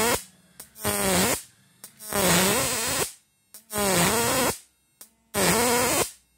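Electric arc drawn between two metal rods from a homemade transistor inverter, an analog electric-shock fishing machine, in a test firing of its output. There are four separate buzzing, hissing bursts, each under a second and about a second and a half apart. In each burst the buzz dips in pitch and comes back up.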